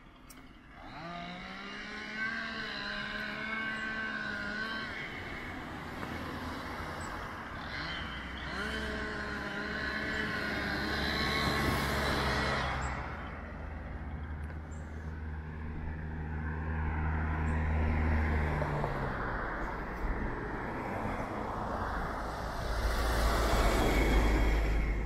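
Road traffic: motor vehicles passing one after another, their engine notes rising as they pull away, a low steady engine hum in the middle, and a louder rushing pass near the end.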